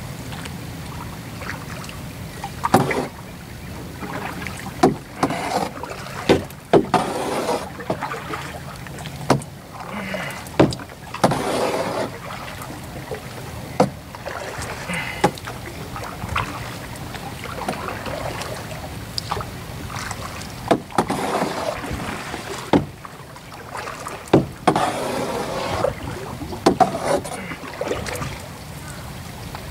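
Canoe paddling in a plastic canoe: water swishing and splashing with each paddle stroke, every second or two, with sharp knocks of the paddle against the hull.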